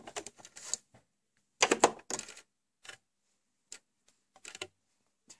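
Irregular short clicks and rustles of hands handling fabric at a stopped sewing machine, as the quilt block is pulled out from under the presser foot. The loudest burst comes about two seconds in.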